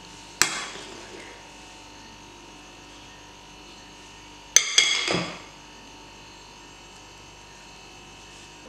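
Metal offset spatula clinking against the glass bowl of chocolate frosting twice, about four seconds apart, each sharp clink followed by a short scrape of the blade.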